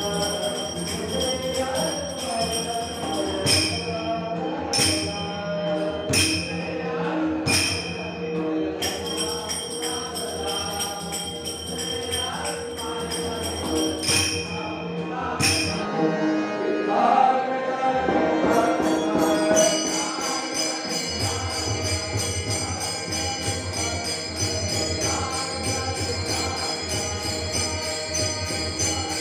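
Varkari bhajan: a group singing together to ringing, clashing hand cymbals (taal). About two-thirds of the way through, the sound cuts to another group, with a fast, even cymbal beat under the singing.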